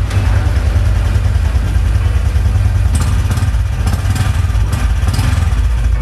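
Motorcycle engine idling steadily, just kick-started now that the remote kill switch has been turned off. A few light clicks sound in the middle.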